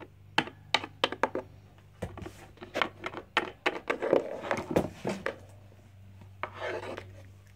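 Small plastic Littlest Pet Shop figures tapped and hopped across a hard tabletop: a string of irregular light knocks, with rubbing and handling noise around four to five seconds in and again near the end.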